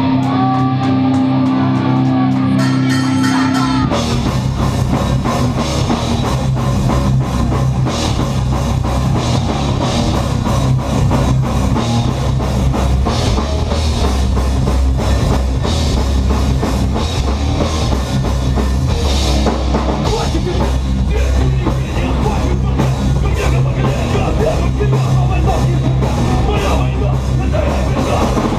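Live rock band playing loud heavy rock: a held guitar sound for the first few seconds, then drums and the full band come in about four seconds in and play on steadily.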